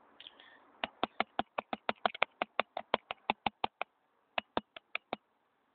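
A rapid run of sharp clicks or taps, about five a second for three seconds, then four more after a short pause.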